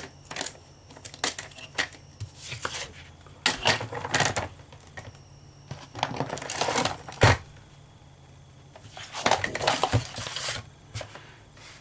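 Sheets of cardstock being handled, slid and tapped on a cutting mat, with a Kaisercraft paper trimmer in use. About six and a half seconds in comes a short swishing stroke of the trimmer blade through the card, ending in a sharp knock.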